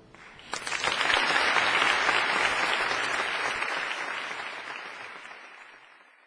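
Audience applauding, breaking out about half a second in, then fading away to nothing near the end.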